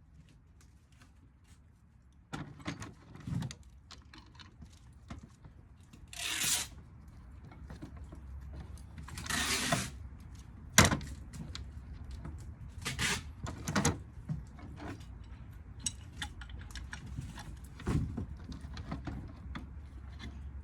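Hand work on a ceiling fan motor being stripped for its copper: scattered clicks, knocks and clinks with two longer scraping hisses, after a quiet first couple of seconds.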